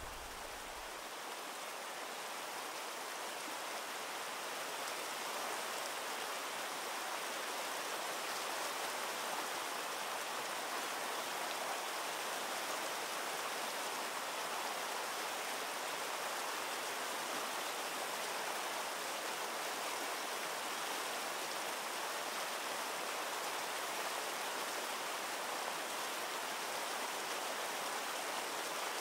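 Rushing water of a mountain stream, a steady even wash that grows slightly louder over the first few seconds and then holds.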